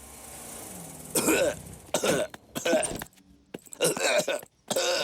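A voice-acted cartoon character coughing from a cold: three coughs, a short pause, then two more.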